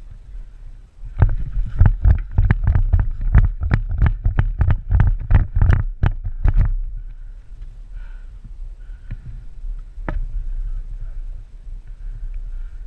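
Running footsteps jolting a body-worn camera, about three heavy thuds a second for some five seconds, then slowing to a walk. A single sharp click about ten seconds in.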